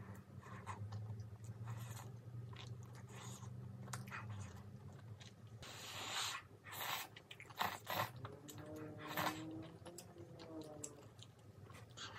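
Close-miked eating: chewing of spicy tteokbokki, a loud slurp of glass noodles about six seconds in, then sharp wet smacks. A motorcycle engine is running in the background.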